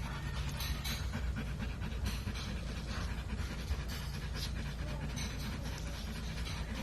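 A puppy panting rapidly and steadily, over a steady low rumble.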